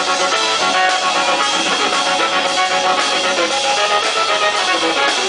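Live rock band playing loud: electric guitar, bass guitar and drums.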